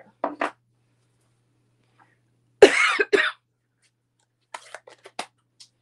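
A woman coughs twice in quick succession. Over the next second or so come a few light clicks and taps.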